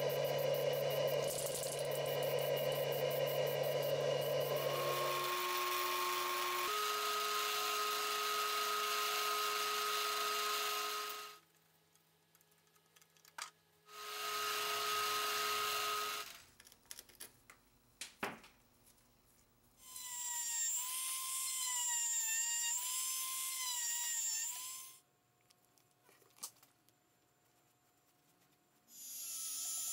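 Small workshop power tools running in stretches with near-quiet gaps between. A steady motor whir lasts about the first eleven seconds and shifts pitch a couple of times. After a gap comes a short two-second run, then a rotary tool whines with a wavering pitch for about five seconds. It starts up again at the very end.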